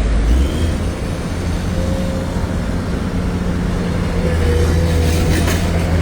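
Steady, loud rumbling roar of a flood torrent: a swollen mountain river rushing past in spate.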